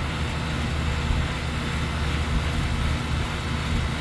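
Trane air-conditioning condensing unit running with a steady low hum from its compressor and condenser fan, while refrigerant is being let into the system.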